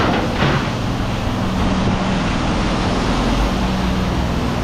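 An engine running steadily, with a low hum under an even rushing noise.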